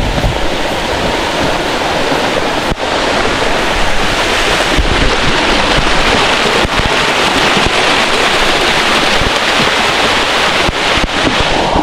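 Small waterfall, about 8–10 m high, pouring and splashing into a rock pool, heard close up as a steady, loud rush of water.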